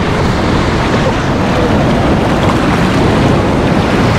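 Shallow surf washing in over sand, a steady rush of water, with wind rumbling on the microphone.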